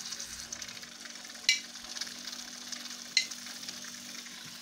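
Flour-and-oil roux with tomato paste sizzling in a frying pan as a spoon stirs it. The spoon knocks sharply against the pan twice, about a second and a half in and again about three seconds in.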